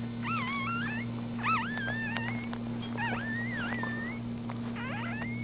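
Newborn puppies squeaking and crying in a run of short, high, wavering squeals, with one longer held squeak near the end.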